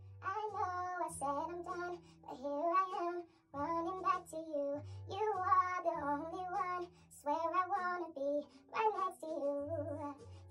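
A woman's high sung vocal over a beat with a deep, pulsing bass line, starting suddenly at the outset and going on in phrases with short breaks.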